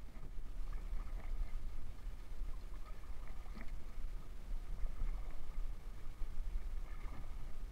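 Kayak paddle blades dipping and splashing in the water with each stroke, over a constant low rumble.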